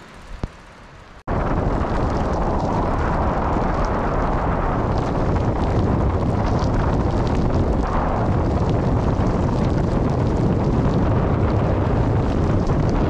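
Wind buffeting the microphone of a camera riding on a bicycle, a loud steady rumble that starts abruptly about a second in. Before it, a quieter stretch with two brief clicks.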